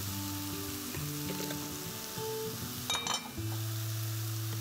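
Sliced shiitake mushrooms sizzling as they sauté in oil in a frying pan, a steady hiss under soft background music with held chords. There is a brief metallic clink about three seconds in.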